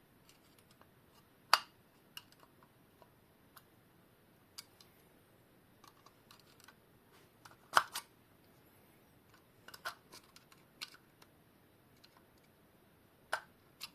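Scattered small clicks and taps of a tool against a small quartz alarm clock's case while the glass is being pried out, about eight in all, with the sharpest near the 2 s mark and just before 8 s.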